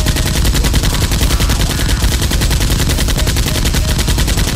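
Rapid automatic gunfire in one sustained burst, the shots coming in a fast, even rhythm.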